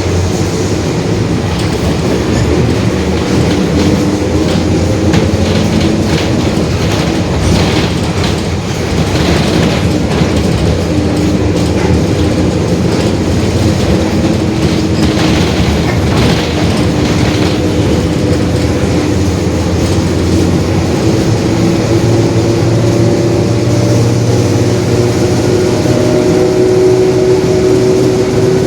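Mercedes-Benz OF-1721 Bluetec 5 city bus under way, heard on board: diesel engine running with steady road rumble. Over it the differential is growling, a tone that rises steadily in pitch from about the middle on.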